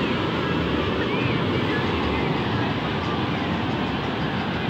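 Ocean surf: a steady, continuous roar of waves breaking on rocks.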